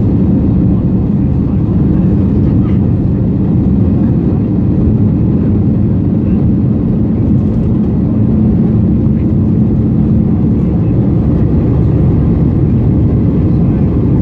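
Steady rumble of an Airbus A320's engines and airflow heard from inside the passenger cabin, with a faint steady hum that fades out near the end.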